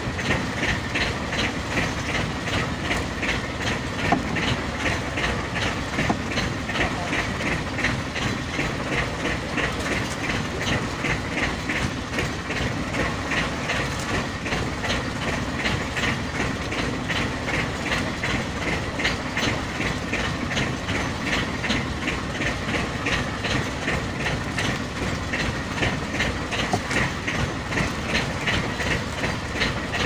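Fishing boat's engine running steadily, with a regular mechanical clicking about twice a second over a constant rumble.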